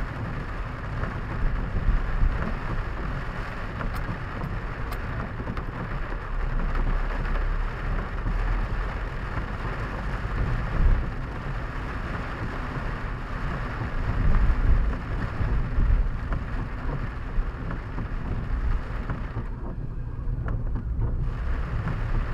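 Rain pattering on a car's roof and windscreen, heard from inside the cabin over the low rumble of the car driving. Near the end the rain hiss drops away for about a second and a half while the rumble carries on.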